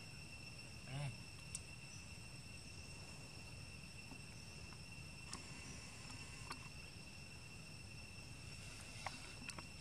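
Steady high-pitched drone of insects. A brief short call comes about a second in, and a few faint clicks are scattered through.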